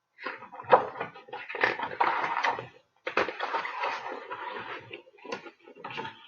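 A large paper book being handled, with paper rustling and sliding as the pages are turned and a sharp knock just under a second in.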